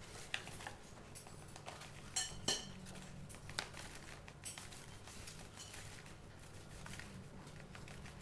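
Faint, scattered taps, clinks and rustles of flour being measured out with a cup and added to a cake mix in a mixing bowl.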